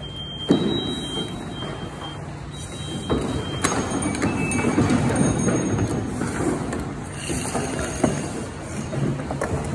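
Turnout gear and an SCBA air pack scraping and shuffling against a wooden prop and a tile floor as a firefighter crawls through, with a sharp knock about half a second in and another near the end.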